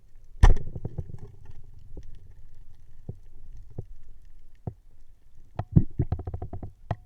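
Muffled underwater spearfishing sounds: a sharp, loud knock about half a second in, then scattered knocks over a low rumble, and a quick run of clicks near the end.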